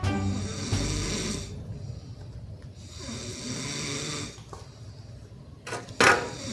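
A sleeping person snoring, a rasping breath about every three seconds, with a sudden loud burst near the end.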